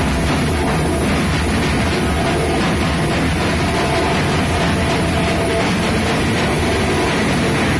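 Loud music mixed with the noise of a crowd of children, dense and steady throughout.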